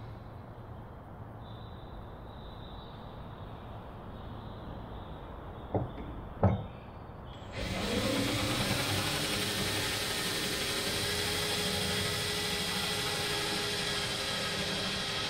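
Handheld power drill with a 3/16-inch bit drilling a hole, starting about seven and a half seconds in and then running steadily. Before it starts there is a quieter stretch with two sharp clicks about six seconds in.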